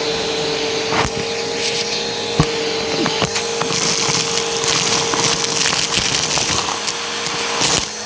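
Helix vacuum running with a steady whine while its hose sucks up a pile of crunchy debris, with sharp clicks and crackles as pieces rattle up the hose.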